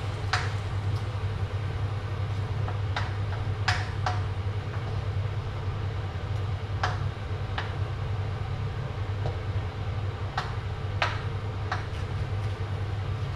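Metal spatula stirring food in a wok, with sharp clinks against the pan every second or few. A steady low hum runs underneath.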